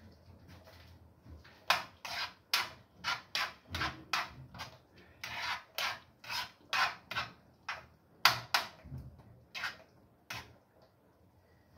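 A spoon scraping a frying pan as stew is stirred: a run of short scraping strokes, about two a second, starting near two seconds in and stopping shortly before the end.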